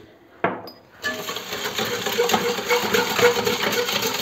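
Wire balloon whisk beating red sugar syrup in a stainless steel bowl: a rapid, continuous rattle of the wires against the metal with the swish of the liquid, starting about a second in.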